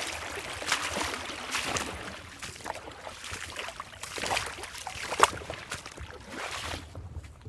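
Creek water running and babbling over rocks, with irregular splashes and gurgles; the splashy sound drops off near the end.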